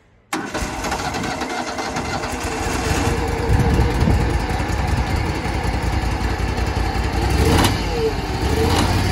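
Exmark zero-turn mower engine starting on the key, catching abruptly about a third of a second in and running. Its note shifts near the end as the throttle is moved.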